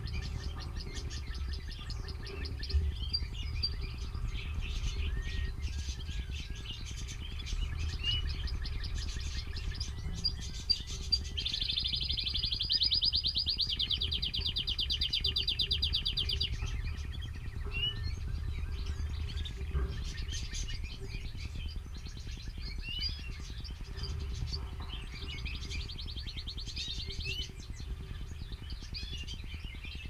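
Canaries chirping and singing, with a long fast trill about twelve seconds in that lasts some five seconds and a shorter trill near the end. A low rumble runs underneath.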